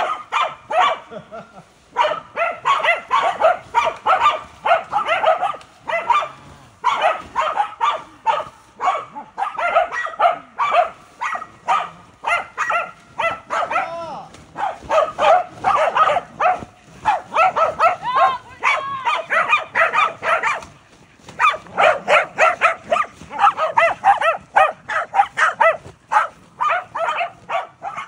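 Welsh corgis barking in rapid, near-continuous volleys, several barks a second, with a few short lulls.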